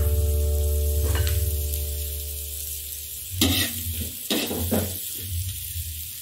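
Tempe and aromatics sizzling in hot oil in a wok while a spatula stirs them, with a few scrapes of the spatula against the wok in the second half. A steady low hum fades out over the first three seconds.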